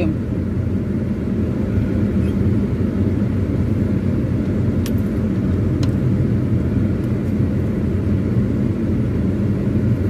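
A car driving along a dirt forest road, heard from inside the car: a steady low rumble of engine and tyres. Two faint clicks come around the middle.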